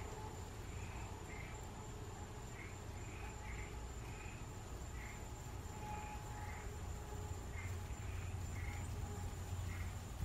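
Faint outdoor night chirping, short high chirps two or three a second at an uneven pace, over a low rumble and a thin steady high tone.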